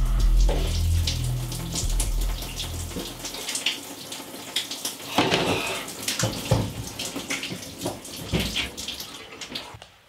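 Low music that fades out after about three seconds, over a shower running, its water spraying and splattering steadily.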